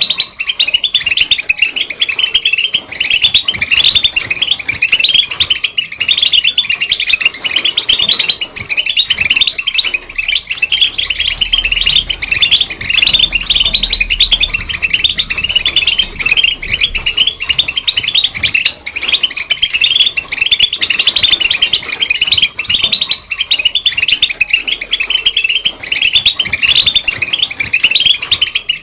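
European goldfinch singing: a fast, continuous stream of high twittering and chirping notes.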